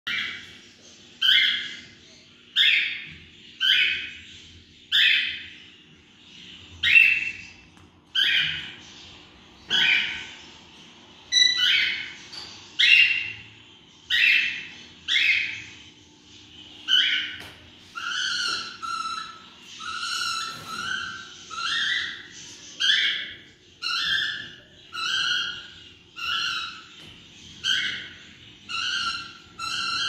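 African grey parrot calling over and over, a short loud call about once a second. After about 17 seconds the calls change to a two-part call with a lower first note.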